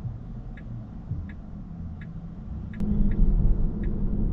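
Steady low road and tyre rumble of a 2023 Tesla Model 3 RWD on the move, with no engine note. A faint regular tick comes about every 0.7 s, and the rumble grows louder about three seconds in.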